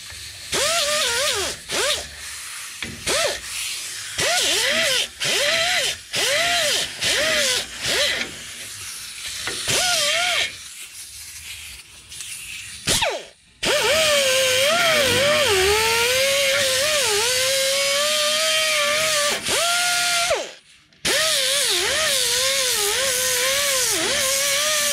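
Angled pneumatic die grinder with a sanding disc, grinding rust scale off a rusty brake caliper bracket so the metal is back to clean, solid metal. Its whine and air hiss come in short bursts for about the first ten seconds, then in two long runs, the pitch sagging and wavering as the disc bites.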